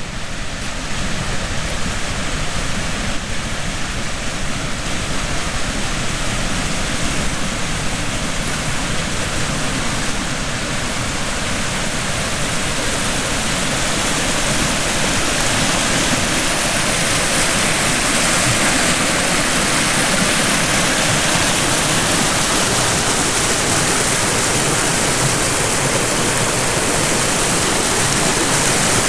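Small mountain creek running over rocks: a steady rush of water that grows slowly louder and brighter as it goes on.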